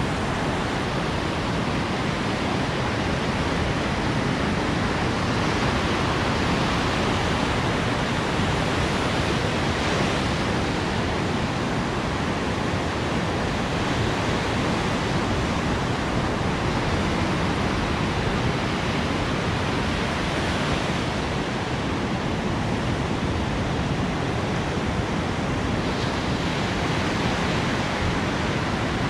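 Ocean surf breaking on a beach: a steady wash of crashing waves, swelling slightly every few seconds.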